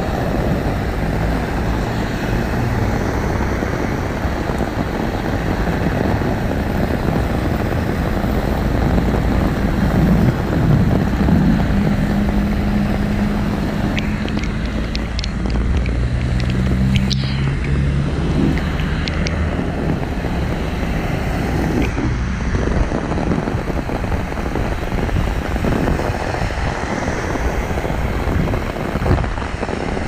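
Heavy rain pouring onto a flooded street, with cars driving through the standing water and their tyres hissing and spraying. A low engine hum runs through roughly the first half and then fades.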